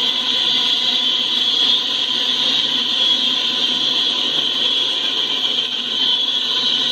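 Empty coal train rolling past, a steady, high-pitched rushing of wheels on rail.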